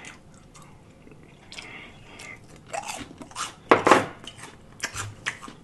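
Close-up chewing of a crispy fried bite, with a run of sharp crunches from about three to five seconds in.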